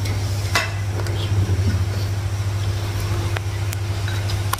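A steady low hum, with a few light clicks and clinks of plates and cutlery scattered through it.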